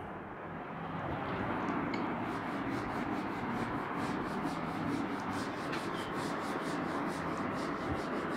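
Chalkboard duster wiped back and forth over a chalkboard, erasing chalk writing: a steady scrubbing hiss in quick strokes, about four a second.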